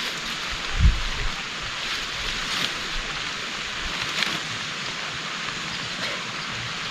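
Heavy rain falling steadily, a dense even hiss with scattered drop ticks, and a brief low thump about a second in.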